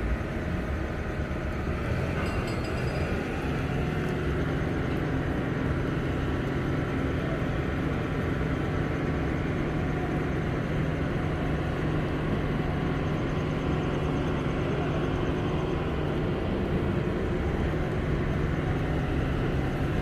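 Heavy construction machinery running steadily: an even engine drone with a low, unchanging hum.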